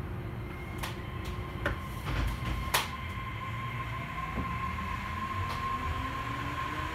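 Osaka Monorail 3000 series train running, heard from inside: a steady low rumble with several sharp clicks and rattles in the first few seconds, and a steady high whine that grows stronger from about halfway through.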